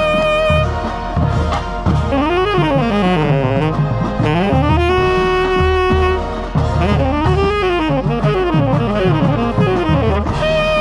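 Tenor saxophone solo played right at the microphone, sweeping up and down in quick runs and holding one steady note about halfway through, with marching band brass and percussion underneath.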